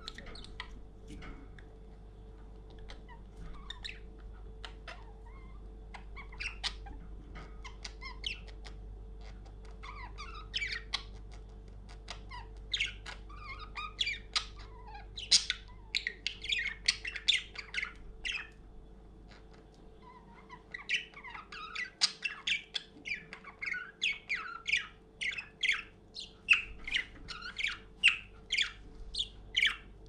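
Budgerigar chattering: scattered short chirps at first, then long runs of rapid chirps and squawks, broken by a short pause a little past the middle.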